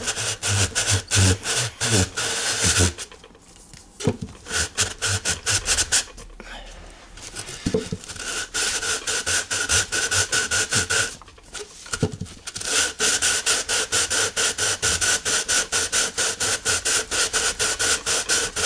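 The end of a clear acrylic tube being rubbed back and forth on a sheet of finer-grade sandpaper, a quick scratchy rasp at about five strokes a second. It stops briefly three times as the tube is given a quarter turn. This is lapping the saw-cut end flat to take out deep marks before welding.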